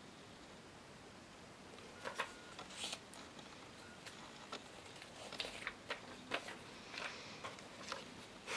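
Paper index cards being handled and swapped: a scattered run of soft rustles and small sharp clicks that starts about two seconds in and grows busier in the second half.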